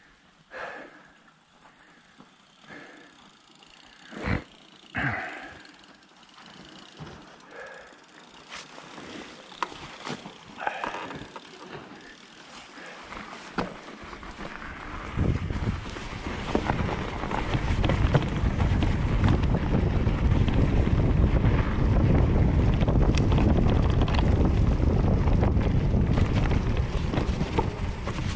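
Mountain bike ridden on a forest trail. The first half is fairly quiet, with scattered clicks and knocks. From about halfway, wind noise on the microphone and tyre rumble build up and stay loud as the bike picks up speed.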